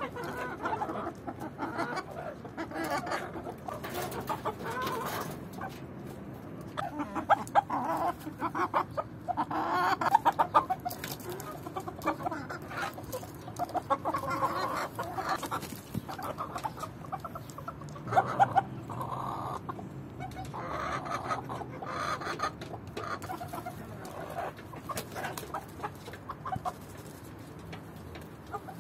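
A small flock of chickens, hens and roosters, clucking on and off throughout, with a few louder calls standing out.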